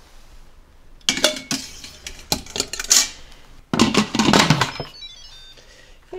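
A metal trivet and plate clatter and clink against the stainless steel inner pot of an 8-quart Instant Pot as they are lowered in, starting about a second in. Around four seconds in come the knocks and scrapes of the cooker's lid being set on and twisted to lock.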